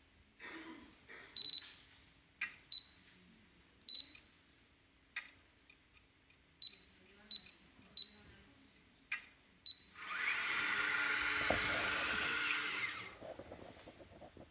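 Topcon MS05 motorized total station giving a series of short, high electronic beeps at irregular intervals, with faint clicks between them. Near the end comes a loud whirring of about three seconds as its servo motors turn the instrument.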